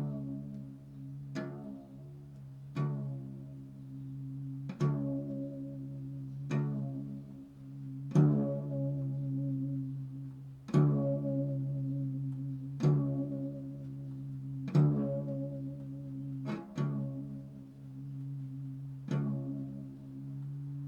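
Improvised meditative music: single notes sound roughly every two seconds, each ringing out and fading, over a steady low drone.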